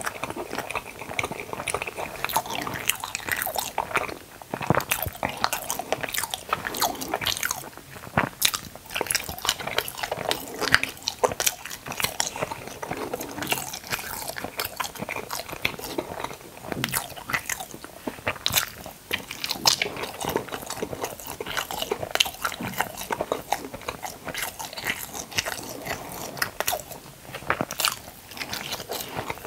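Close-miked eating sounds: a person biting and chewing a soft white food, with many small sharp mouth clicks and smacks at an uneven pace.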